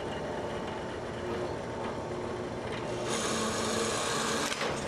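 Drill press running at 1,000 RPM while an X29 brad point bit cuts through half-inch polycarbonate under a constant weighted feed: a steady motor hum with cutting noise. The cutting grows louder and brighter about three seconds in.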